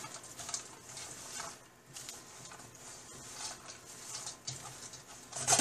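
Spatula stirring and scraping diced chicken, garlic and onions as they toast in butter in a stainless steel saucepan: a run of light scrapes and ticks, louder near the end.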